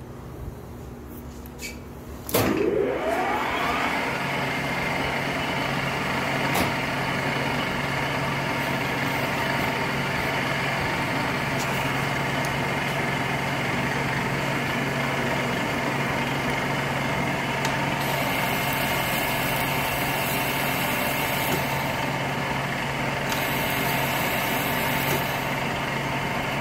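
Metal lathe starting up about two seconds in, its motor and spindle running up with a rising whine, then running steadily with a hum. Two stretches of high hiss come in the last third.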